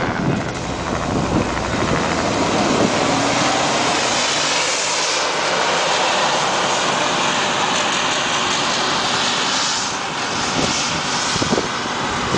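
Ford M8 six-wheeled armored car driving away across a rough field, its Hercules six-cylinder petrol engine running steadily under load. The deep part of the engine sound thins out about four seconds in as the vehicle pulls away.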